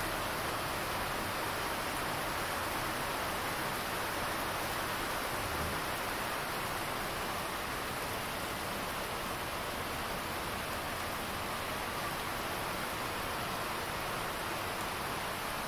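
Steady rain falling outdoors, an even, unbroken hiss.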